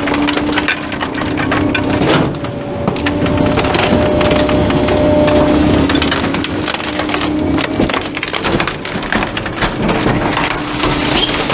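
Rear-loader garbage truck's hydraulic packer blade crushing a slatted wooden frame in the hopper: wood cracking and splintering again and again over a steady hum from the truck, with the sharpest cracks about two seconds in and again near eight seconds.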